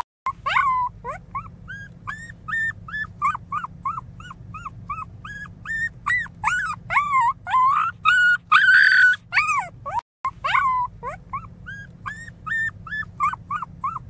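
Newborn pinscher puppy crying: a rapid string of short, high squeaky whines, two or three a second, broken by a few longer, louder wails that rise and fall in pitch.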